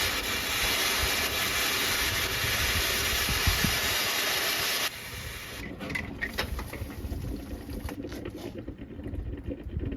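Steam and hot coolant hissing out of an overheated, over-pressurized Volkswagen TDI diesel cooling system, a loud steady hiss that cuts off suddenly about five seconds in, leaving faint crackling. The owner has earlier called a sound of this kind the 'blown head gasket sound'.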